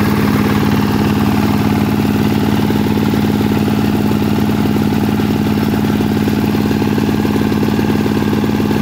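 SJ12 corn sheller machine running steadily, its engine and drum at a constant speed with a strong, unchanging tone.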